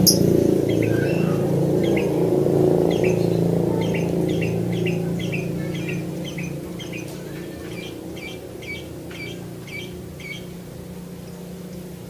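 Lovebird chirping: a series of short, high chirps, about two a second, over a low rumble that fades away during the first half.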